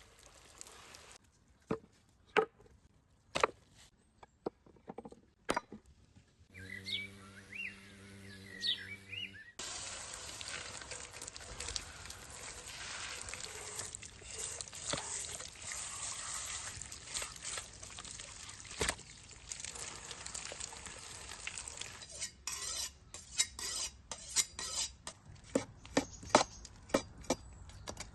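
Outdoor food-preparation sounds: scattered clinks and knocks, then a short passage of a steady pitched sound, then a steady hiss lasting about twelve seconds, and a quick run of taps near the end.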